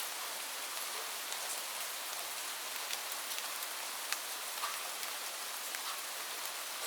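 Light rain falling as a steady hiss, with scattered individual drops ticking sharply on a surface.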